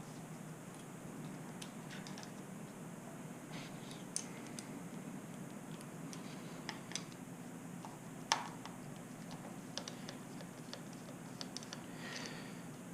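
Scattered light clicks and taps of hand tools and small parts being handled while controls are taken off a motorbike's handlebars, the sharpest click about eight seconds in, over a faint low hum.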